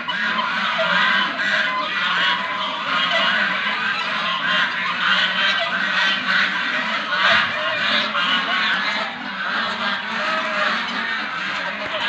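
A large flock of domestic geese and ducks honking and calling all at once in a dense, unbroken chorus as they are fed.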